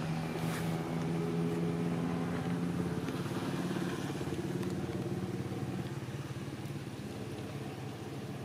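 A small engine running steadily with a low, even hum, slowly fading over the last few seconds.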